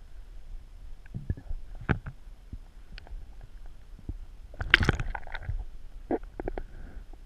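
Muffled underwater sound from a submerged camera: a low, steady rumble of moving water with scattered knocks and thumps against the housing, the loudest cluster about two-thirds of the way in.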